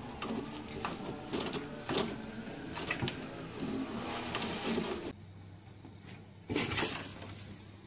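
A cat pawing at a toilet paper roll on its wall holder, the roll spinning and the paper rustling in irregular pulls about once a second. After a cut, there is a short, louder rush of noise as a cat leaps from a snow-covered car roof.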